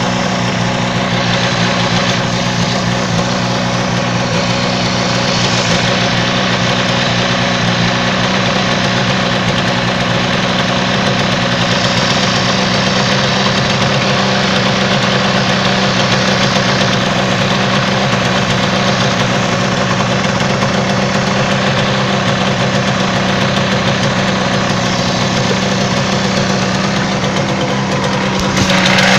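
Yamaha TZR250 (3MA) two-stroke parallel-twin engine idling steadily.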